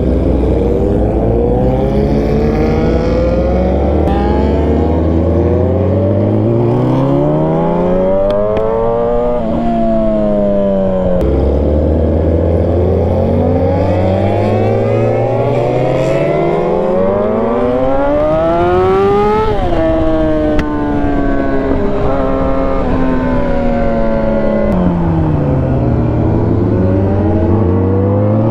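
Yamaha R6 inline-four sport bike engine under way, revs climbing as it accelerates and dropping sharply at gear changes. In the second half the revs fall away in steps as it slows, then climb again near the end as it pulls away.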